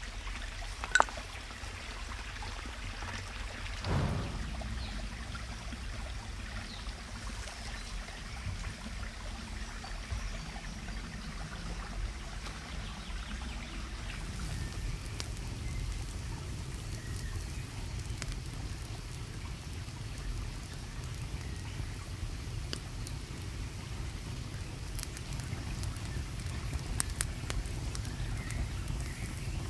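A ferrocerium rod is scraped with a knife spine once, a sharp strike about a second in, and there is a soft thump about four seconds in. Under it runs the steady sound of running water, and a wood fire crackles faintly a few times near the end.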